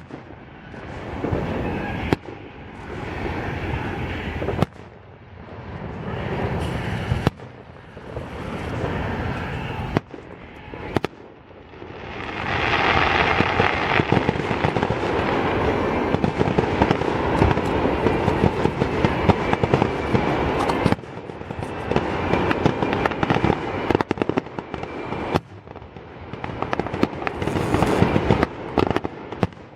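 Fireworks display: aerial shells bursting with sharp booms every few seconds. From a little under halfway in, there is a long stretch of dense, continuous crackling and popping.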